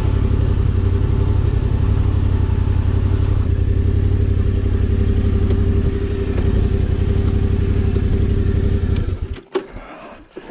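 Yamaha Ténéré 700's parallel-twin engine running steadily at low revs. About nine seconds in it is switched off and cuts out suddenly, leaving a few sharp clicks and knocks.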